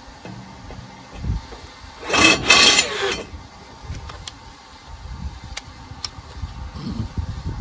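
Bosch cordless drill boring into rusty steel box section: a loud rasping burst about two seconds in, lasting about a second, then a few sharp clicks as the drill and chuck are handled.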